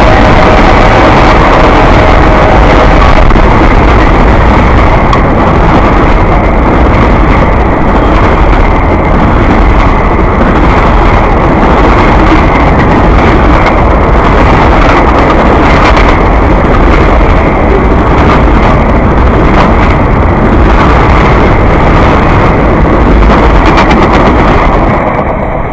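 CSX freight train passing close at speed behind SD50-3 and SD40-2 diesel locomotives, a loud continuous rumble and rattle. The tail of the K5LA multi-chime horn chord fades out over the first few seconds, and the noise eases off near the end.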